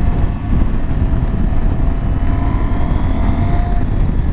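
Heavy wind rush on the microphone over a KTM 790 Adventure's 799cc LC8c parallel-twin engine, whose note rises steadily as the bike pulls through a gear.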